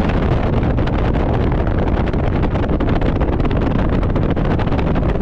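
2024 Bass Tracker Pro Team 175 TXW bass boat running at speed across the water, with heavy wind buffeting on the microphone over the motor and hull noise.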